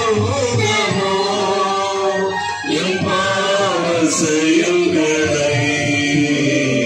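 Voices singing a devotional hymn together, in long held notes, with a short break for a new phrase about two and a half seconds in.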